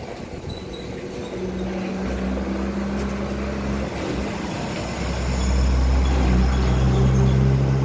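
A heavy engine or machine running with a steady low hum. It grows louder about halfway through, and its pitch shifts lower.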